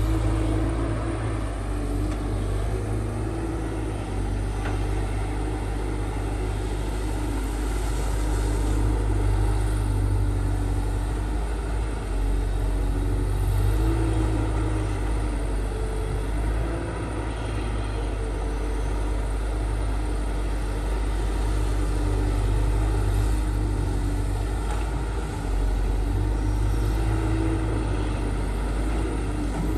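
Diesel engine of heavy earthmoving machinery running under load: a deep, continuous rumble that swells and eases in level every few seconds.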